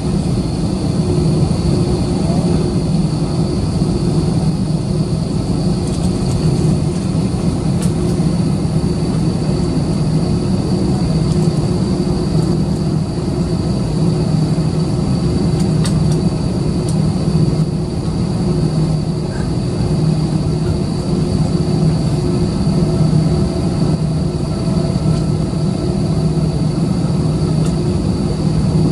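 Airbus A320-214's CFM56-5B turbofan engines at low taxi thrust, heard inside the passenger cabin: a steady low drone with a thin high whine over it.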